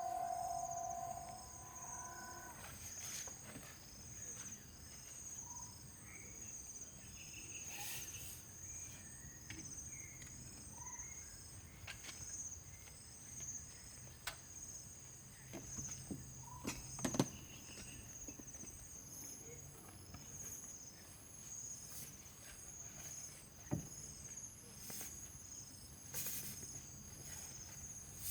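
Insects trilling steadily in one high, unbroken tone, with scattered clicks and knocks throughout and a short pitched call in the first two seconds.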